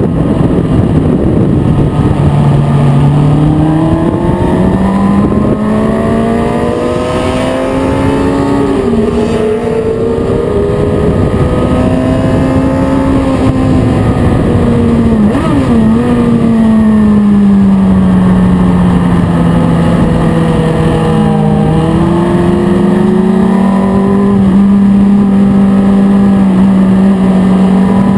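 Onboard sound of a motorcycle ridden hard on a race track: its engine note climbs and falls with the throttle, with a few sudden pitch jumps at gear changes, over a steady rush of wind.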